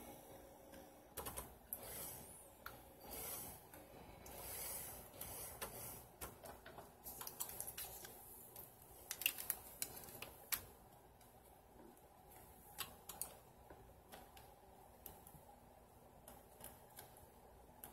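Scattered light clicks and taps from an opened-up Bernette sewing machine's mechanism being handled and turned by hand during oiling, with a few short rustling sounds; no motor running.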